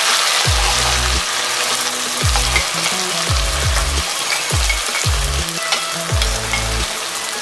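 Freshly ground wet masala paste sizzling in hot oil in a kadhai, a steady dense crackle as the paste starts to fry. An electronic background track with a heavy, stepping bass line plays under it.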